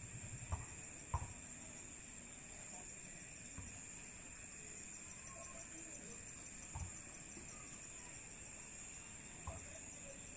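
Steady high-pitched chorus of night insects, with a rapid pulsing trill joining about halfway through. A few soft knocks sound over it.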